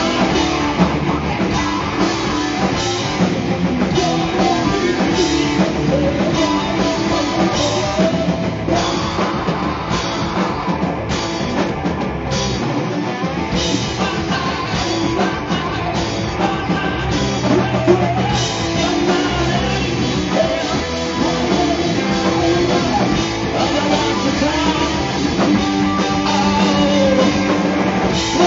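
Rock band playing live, with electric guitars and a drum kit. The lowest notes drop out briefly near the middle, then the full band carries on.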